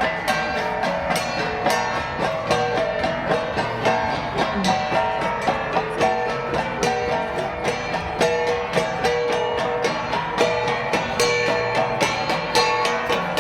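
Gong music: flat gongs struck in a quick, steady rhythm of short ringing strokes.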